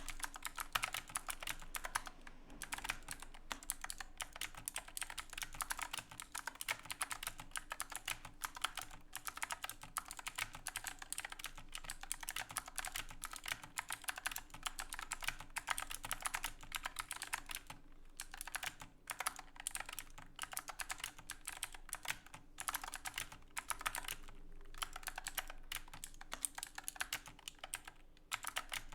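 Fast, continuous typing on an Epomaker AK84S mechanical keyboard with clicky Chocolate Blue switches and silicone keycaps: a dense stream of key clicks, broken by a few brief pauses in the second half.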